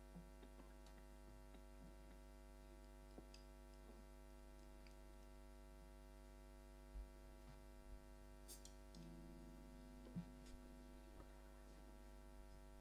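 Near silence: a steady electrical hum from the sound system, with a few faint clicks and a couple of soft knocks.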